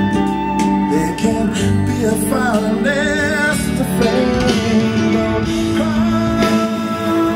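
A song with singing and guitar played back through an Altec A7-style horn loudspeaker, fitted with a JBL 2441 compression driver and a 15-inch LEEA woofer, driven by a Philips germanium transistor amplifier. The singing voice wavers in pitch with vibrato.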